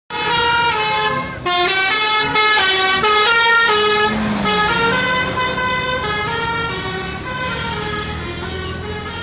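Telolet multi-tone bus air horn playing a quick melodic run of notes, with short breaks between phrases, then holding longer notes that slowly fade toward the end.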